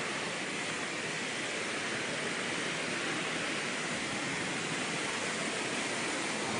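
Steady rushing water: an even, unbroken hiss with no sudden sounds.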